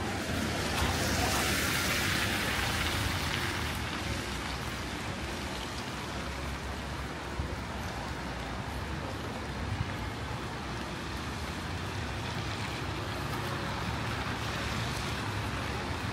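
City street traffic noise, steady throughout, with a louder hiss of a passing vehicle swelling and fading between about one and four seconds in.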